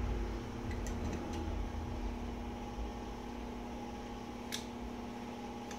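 Small metal clicks of an AR-15 bolt and its parts being handled and fitted back into the bolt carrier: a few faint clicks about a second in and one sharper click about four and a half seconds in. A steady hum runs underneath.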